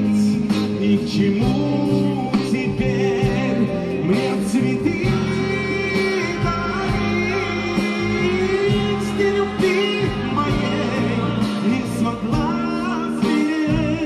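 Live band playing a song on electric guitars, bass guitar, drum kit and keyboard, with a wavering lead melody over a steady bass.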